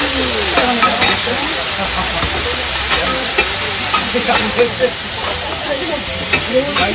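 Noodles sizzling in sauce on a flat steel griddle while two metal spatulas scrape along it and turn them, with repeated sharp clacks of metal on metal.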